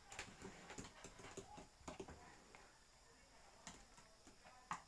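Faint, scattered clicks and taps of a small dog's claws and paws on bare wooden floorboards, with a quiet stretch in the middle and a sharper tap near the end.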